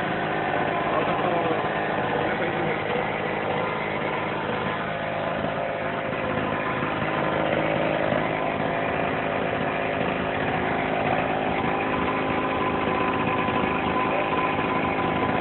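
Small portable petrol generator's engine running steadily at a constant speed, fed with HHO gas piped by hose from an electrolysis cell.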